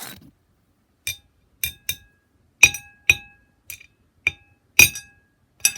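Sharp clinks of something hard striking a glass or ceramic dish: about nine irregular strikes, several with a brief ring. The microwaved black-sugar candy is being tested and is still not melted.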